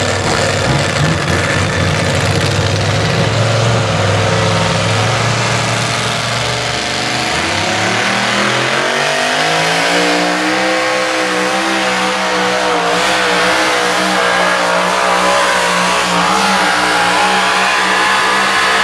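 Supercharged engine of a two-wheel-drive pulling truck at full throttle, dragging a weight-transfer sled. The engine note holds steady for the first several seconds, then climbs about eight seconds in and stays high.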